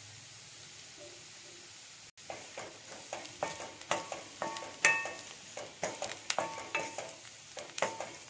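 A spatula scraping and knocking against a stainless steel kadai as fried taro root pieces are stirred, with some sizzling. The stirring starts about two seconds in, in quick repeated strokes that each leave a short metallic ring; before it there is only a low hiss.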